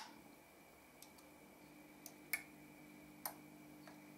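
Near-quiet bench with a faint steady low mains hum and a few soft ticks. The sharpest is a small relay clicking in a little over two seconds after power-on, the delayed pull-in set by the muting circuit.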